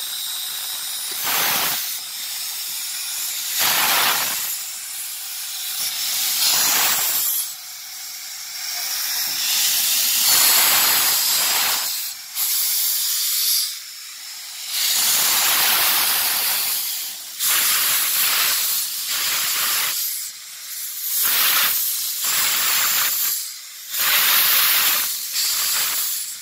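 Steam hissing from the cylinder drain cocks of a Polish-built narrow-gauge Kp4 steam locomotive as it runs slowly. The hiss comes in repeated surges a second or two apart.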